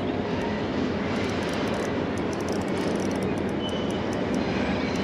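Wind blowing over the microphone: a steady low rushing noise.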